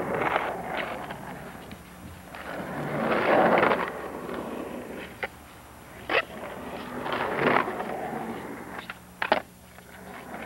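Skateboard wheels rolling over a ramp, the rolling noise swelling and fading as the board speeds up and slows, with a few sharp clacks of the board, about five, six and nine seconds in.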